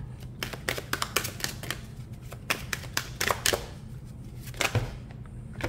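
A deck of large oracle cards being shuffled by hand: quick card-on-card slaps and flicks in short spells, with brief pauses between them.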